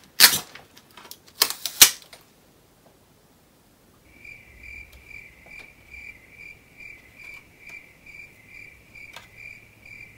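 Two short crackles of sticky tape being handled on a CD, then a cricket chirping steadily at about three chirps a second, the comic 'crickets' to mark that nothing happened.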